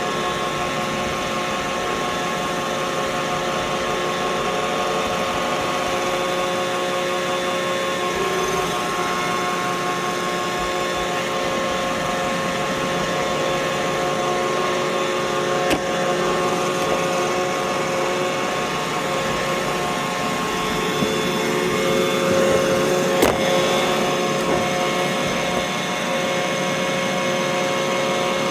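Roomba robot vacuum running: a steady motor whine over the hiss of its suction and brushes, with two brief knocks, one about 16 seconds in and one about 23 seconds in.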